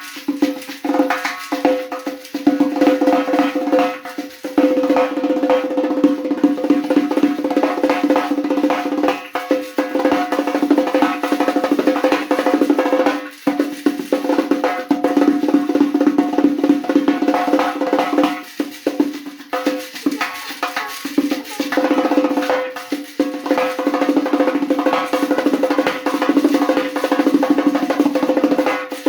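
Remo doira frame drum being played in fast rolls and rapid strokes over the drum's steady ringing tone, with a few brief breaks between phrases.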